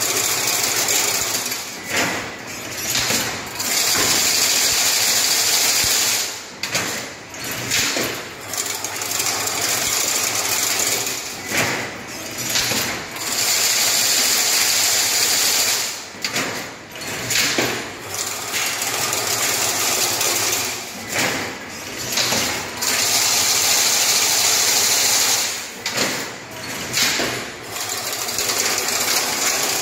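Automatic chain link fencing machine running through its weaving cycle. A steady whirring stretch of a few seconds comes back about every nine to ten seconds, with short knocks and clatter in between.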